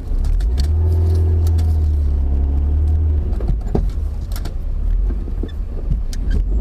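BMW E36 325is on the move, its straight-six running under a loud low rumble, with scattered clicks and knocks from the driveline. It is the noise of a broken differential mounting bolt letting the diff shift and rub.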